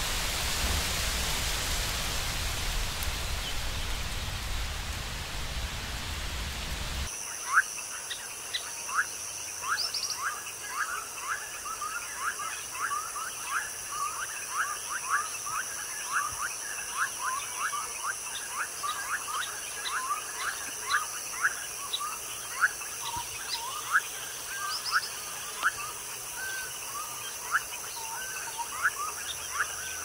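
Outdoor nature ambience: a steady rushing hiss for about the first seven seconds, then an abrupt change to a steady high-pitched drone with short chirping calls repeating about one to two times a second.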